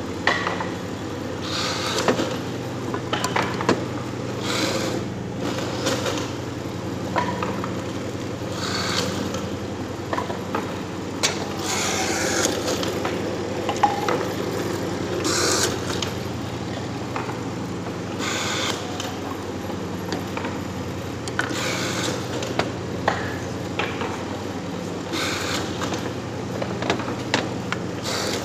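A machine's motor hums steadily while something scrapes against it in short, irregular strokes every second or two.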